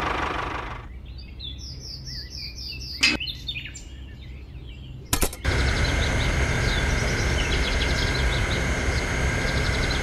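Birds chirping in short repeated calls, with a click about three seconds in. About five seconds in, after another click, a steady mechanical hum with a low rumble starts and runs on louder than the birds.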